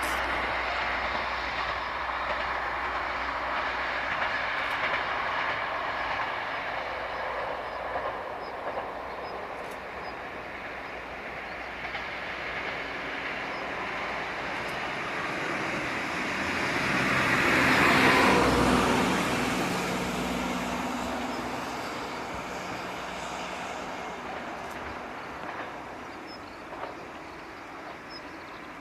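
Kyoto Tango Railway diesel train passing. Its sound builds, is loudest about eighteen seconds in with a low engine note, then fades away.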